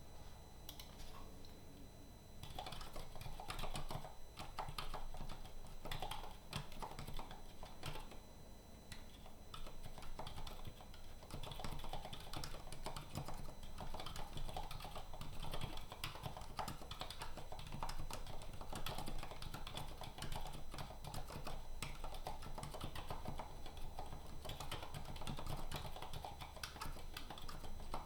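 Typing on a Zinc split mechanical keyboard with unlubricated Gateron Black Silent switches: a steady stream of soft, dampened keystrokes at an uneven typing pace, thinning out briefly a couple of times.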